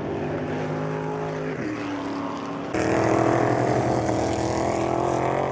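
Stock Car Brasil V8 race engines running at speed, their note stepping down in pitch about one and a half seconds in. About halfway through it cuts suddenly to a single louder, closer car's engine at a steady higher pitch.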